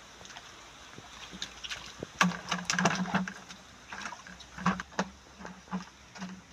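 Water splashing and slapping as catfish thrash in a shallow stream pool while being grabbed by hand and dropped into a plastic jerrycan. A cluster of loud, irregular splashes comes about two seconds in, followed by scattered smaller ones.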